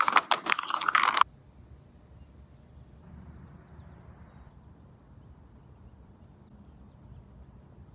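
A plastic bait bag crinkling as it is torn open, with a voice, for about a second, then cut off abruptly. After that there is only a faint, steady low rumble of outdoor background.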